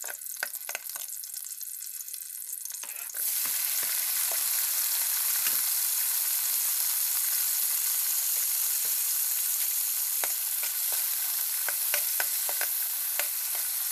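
Garlic, onion and tomato sizzling in hot oil in a wok, with a metal spatula scraping and clicking against the pan. About three seconds in the sizzle suddenly gets much louder and stays loud.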